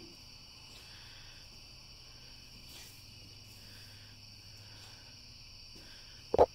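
Steady chorus of crickets, with one sharp knock near the end.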